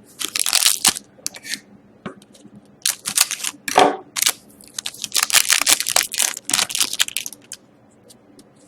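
Trading cards and pack wrappers being handled at a table: bursts of papery rustling and sliding with short sharp clicks.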